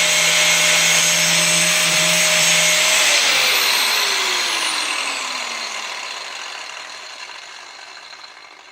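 Angle grinder sharpening a steel mower blade clamped in a vise, then switched off about three seconds in: its whine falls steadily in pitch as the disc spins down and fades.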